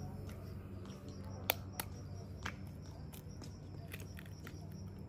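Raw eggs being cracked by hand over a metal bowl: a few sharp taps of the shells, the two loudest close together about a second and a half in, a softer one shortly after. A low steady hum and faint repeated chirps lie underneath.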